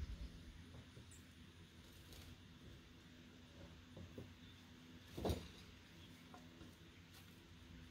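Near silence with a faint steady hum, broken by one short knock about five seconds in.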